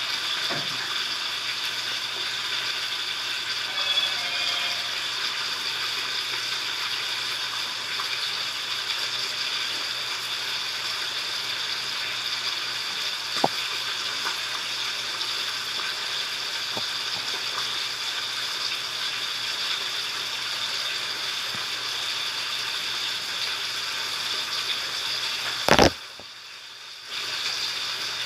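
Foamy slime being squeezed and worked by hand, giving a steady, dense crackling of tiny popping air bubbles with occasional small clicks. Near the end a single sharp click is followed by about a second of quieter sound before the crackling returns.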